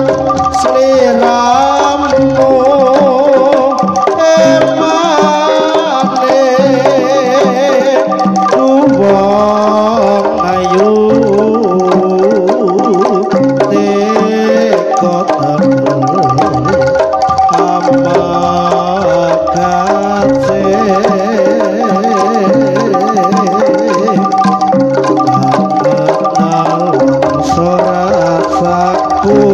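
Live jaranan accompaniment music: kendang hand drums and struck gamelan mallet instruments, with a wavering melody line on top, played loud through a large outdoor sound system.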